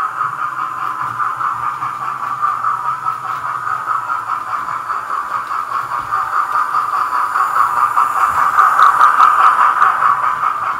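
Hornby TTS digital sound decoder in a model of Peppercorn A1 steam locomotive 60163 Tornado, playing rapid steam chuffing with hiss through the model's small speaker as the train runs. The sound grows louder about three quarters of the way through as the locomotive and its coaches pass close by.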